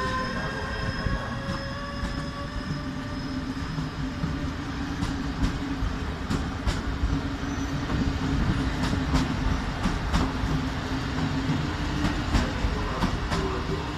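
Passenger train pulling out behind a Bombardier Traxx electric locomotive, its coaches rolling past with a steady rumble of wheels on rail and sharp clicks over rail joints that come more often from about five seconds in. The locomotive's high whine fades out within the first second.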